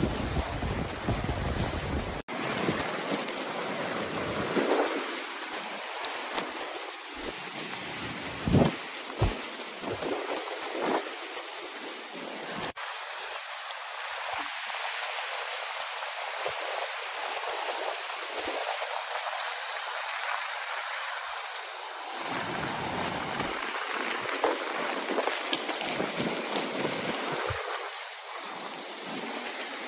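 Steady rushing hiss of a swollen, muddy river in spate, with a few brief thumps. A deeper rumble in the first two seconds cuts off abruptly.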